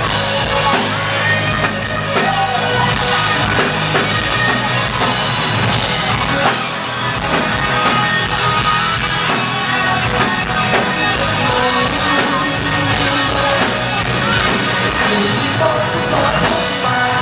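Live rock band performing a Thai pop-rock song, with drum kit, guitars and singing throughout.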